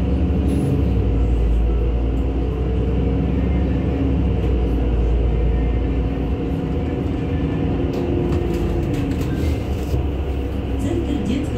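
A NefAZ-5299 city bus driving, heard from inside the passenger cabin: a steady low engine and road rumble with a hum that drifts slightly in pitch, and a few light rattles in the second half.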